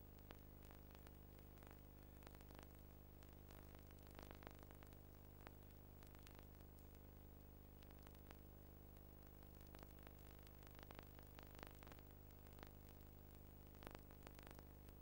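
Near silence: a faint steady electrical hum under a light hiss, with scattered faint clicks.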